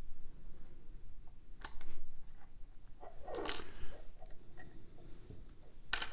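Small metal clicks and scrapes as a homemade bent-metal assembly tool works against the steel parts of a Craftsman 44807 ratchet head while the pawl is being fitted. There are a few sharp clicks, one a little under two seconds in and one at the end, and a brief scrape about halfway through.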